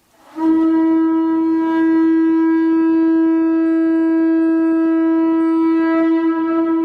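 Conch shell trumpet blown in one long steady note that begins just after the start and wavers slightly near the end.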